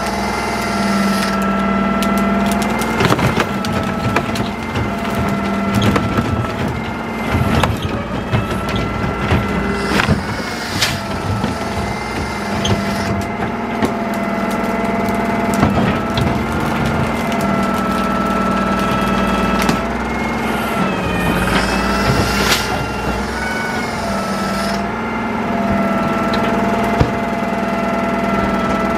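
Garbage truck diesel engine and hydraulics running with a steady whine as the side-loader's hopper is packed with green waste: branches crunch and metal clunks sound every few seconds. About two-thirds through, the whine dips in pitch under load and recovers.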